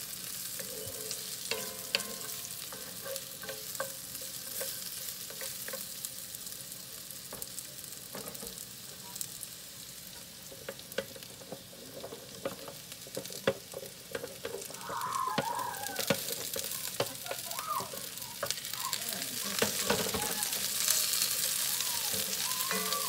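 Sliced vegetables sizzling in a cast-iron skillet, with the repeated scrape and knock of a wooden spatula stirring them against the pan. After asparagus spears are pushed in from a sheet pan, the sizzle gets louder in the second half.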